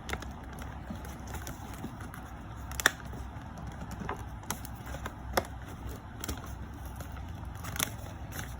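Cardboard speaker box being handled and pried open, with scattered crackles and sharp clicks, the sharpest a little under three seconds in, midway and near the end, over a steady low hum.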